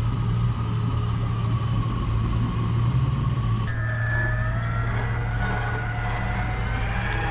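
Off-road vehicle engine running steadily. About halfway in the sound changes abruptly and a wavering whine joins the engine hum.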